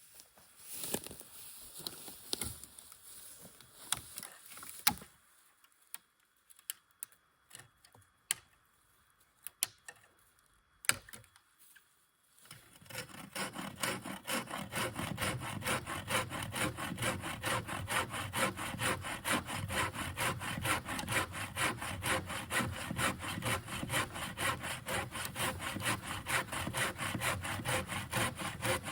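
Scattered knocks and clicks of handling, then, about twelve seconds in, a hand-forged saw blade starts cutting wood in steady, even back-and-forth strokes.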